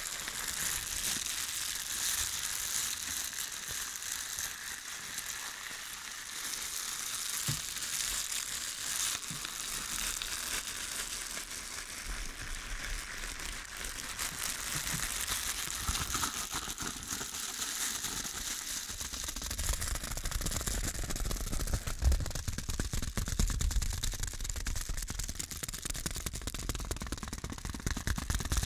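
Lit wooden matches burning close to the microphone, a steady crackling hiss with a few sharp ticks. A low rumble joins in about two-thirds of the way through.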